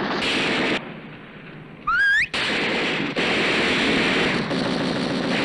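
Automatic gunfire in long continuous bursts, with a lull about a second in. Near the two-second mark a short rising whine comes just before the firing resumes.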